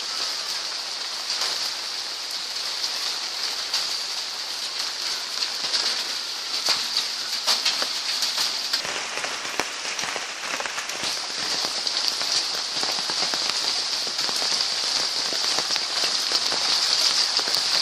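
Rain falling steadily: a dense hiss with many separate drop hits ticking through it.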